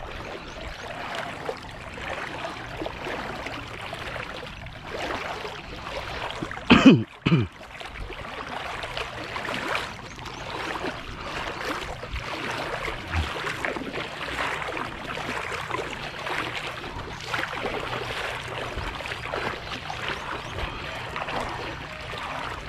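Steady sloshing and trickling of shallow water around a wading angler, with one brief loud sound about seven seconds in.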